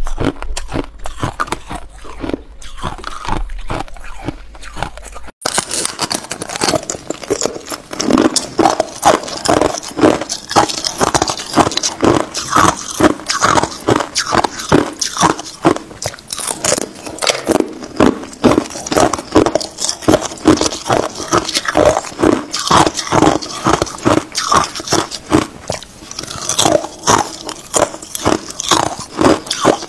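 Ice bitten and chewed close to the microphone, a fast run of sharp crunches. About five seconds in, the crunching turns louder and denser.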